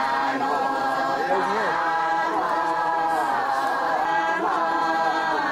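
A group of voices singing a tuki song together in unison, holding long notes that slide from one pitch to the next without pause.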